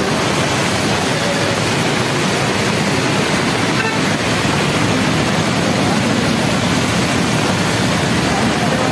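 Heavy monsoon rain falling in a steady, dense hiss, with traffic on the wet road mixed in.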